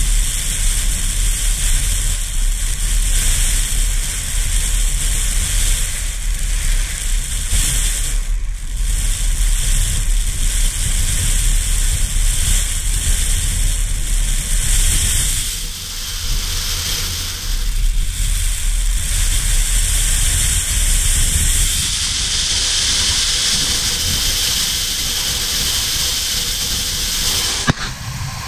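Strong wind buffeting the action camera's microphone, a low rumble under a steady hiss of wind-blown sand. About three-quarters of the way through the rumble eases and the sand hiss grows, and near the end there is one sharp knock as the camera tips over.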